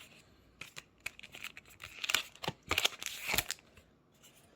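Foil wrapper of a Pokémon TCG booster pack crinkling and being torn open: a dense run of sharp crackles that dies down near the end.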